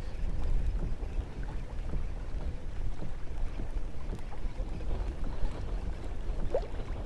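Wind buffeting the microphone, with small waves slapping against a kayak's hull. A brief faint rising squeak comes about six and a half seconds in.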